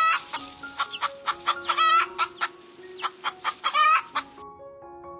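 Chicken clucking, a rapid run of short clucks broken by a few louder drawn-out calls, over soft background music; the clucking stops near the end, leaving only the music.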